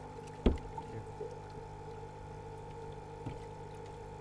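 A sharp, loud knock on the canoe about half a second in, then two fainter knocks, as a hooked crappie is landed alongside the boat, over a steady faint hum.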